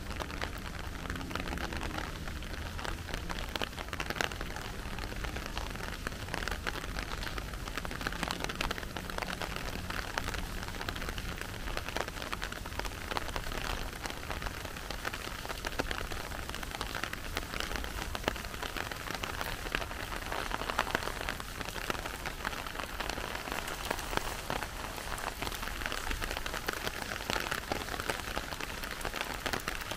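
Steady rain falling, a dense patter of many small drops over a low rumble.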